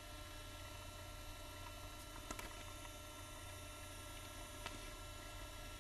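Quiet room tone: a steady low electrical hum with faint steady whine lines over it, broken by two faint clicks, one about two seconds in and one near the end.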